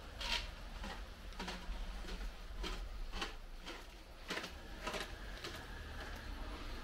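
Footsteps on a paved street in an even walking rhythm, a little under two sharp steps a second, over a low steady rumble.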